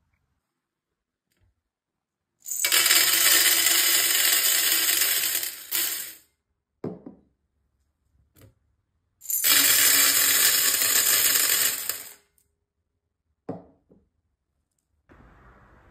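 Small beads pouring in a stream onto a metal tray, played in reverse. Two long pours of about three and a half and three seconds, with a few short clicks of beads between and after them.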